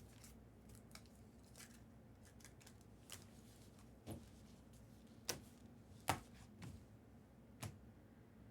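Faint, scattered clicks and taps of trading cards being handled and set down on a table, about seven short knocks spread irregularly over a low room hum.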